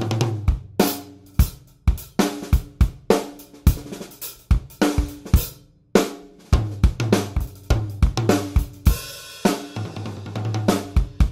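Acoustic drum kit with new Evans drumheads played in a groove with fills, snare, toms and bass drum under hi-hat and cymbals. The toms ring low. Playing stops briefly about six seconds in, then resumes, with a cymbal crash washing out about nine seconds in.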